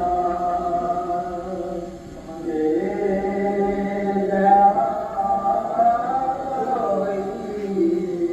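A naat, Islamic devotional poetry in praise of the Prophet, sung unaccompanied in long held notes that glide up and down, with a short breath pause about two seconds in.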